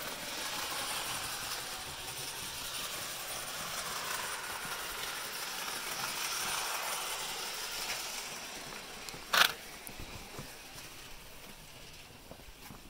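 Old Bachmann New York Central 4-8-4 Niagara model steam locomotive running light on model track, a steady running noise that swells and eases, then fades after about nine seconds. One sharp knock about nine seconds in, then a few faint taps.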